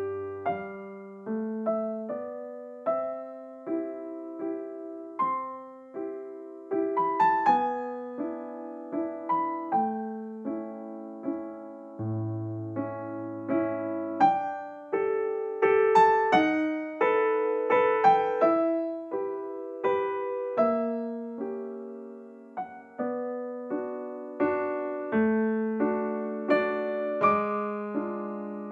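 Background music: a slow keyboard melody of single notes struck one after another, each fading out.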